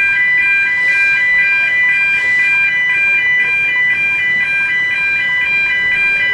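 Level-crossing warning alarm sounding as a steam train approaches the road crossing: an electronic two-tone alarm switching rapidly between a lower and a higher pitch, several times a second.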